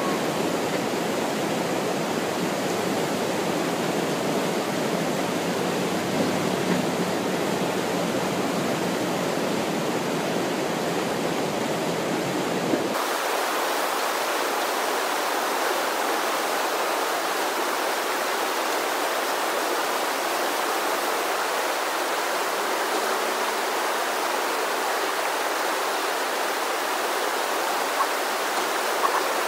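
Steady rushing of whitewater from a breaking standing wave on a river. About thirteen seconds in, the low rumble drops out and the rush sounds thinner and brighter.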